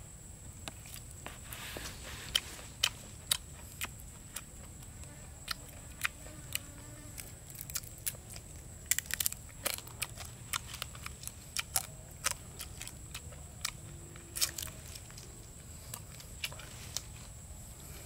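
Crunching and chewing of crispy spit-grilled meat close to the mouth, with sharp irregular crunches, a cluster of them about nine seconds in.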